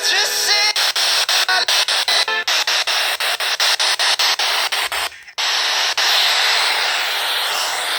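Radio audio: a brief snatch of music, then noise that cuts in and out rapidly, several times a second. From about five seconds in there is steady static hiss.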